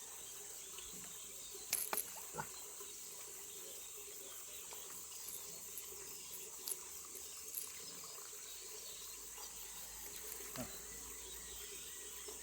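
Steady high-pitched drone of insects, crickets or cicadas, with a few short faint clicks, the loudest a cluster about two seconds in.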